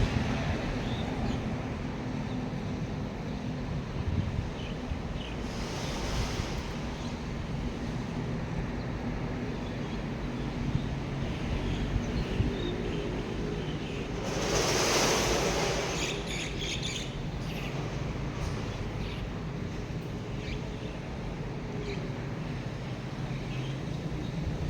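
Outdoor storm ambience: a steady rushing noise with a low hum underneath, and a brief louder whoosh that swells and fades about fifteen seconds in.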